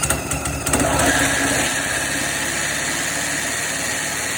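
A Briggs & Stratton 3-horsepower single-cylinder lawn mower engine running steadily and loud. A thin steady squeal comes in about a second in, from something rubbing inside the mower.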